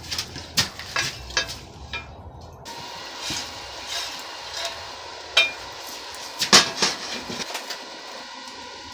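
Irregular sharp metallic clinks and knocks of steel tools and pieces being handled and struck, with the loudest pair a little past the middle.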